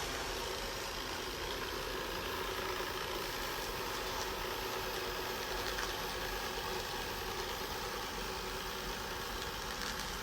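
Roborock S6 Pure robot vacuum running with a steady mechanical hum as it drives itself back to its charging dock.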